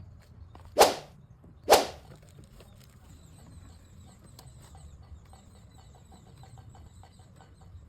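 Two sharp swishes about a second apart, like something swung fast through the air, followed by faint high-pitched chirping and small ticks.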